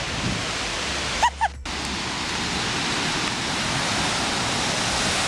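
Steady rushing of river water over rapids and falls, a dense even hiss that grows a little louder. About a second in there is a brief break with two short high chirps.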